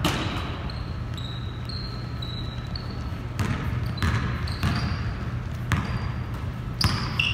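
Basketball game on a hardwood gym court: short high squeaks of sneakers and scattered sharp thuds of the ball bouncing and feet landing, with a short ring after each thud in the big hall.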